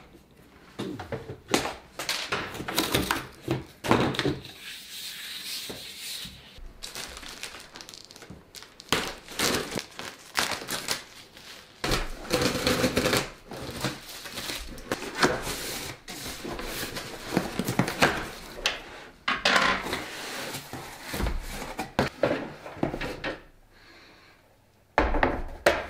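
Cardboard packaging being opened by hand: scissors cutting packing tape, then cardboard flaps rustling and scraping, with irregular knocks as a long projection-screen case is slid out of its box and handled.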